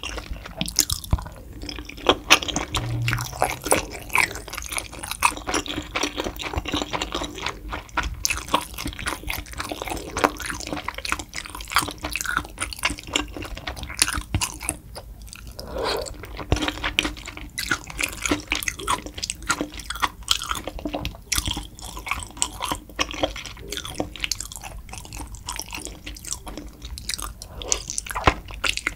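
Close-miked chewing of soupy, spicy tteokbokki: wet, sticky mouth sounds with a dense run of small irregular clicks as the rice cakes and fish cake are chewed.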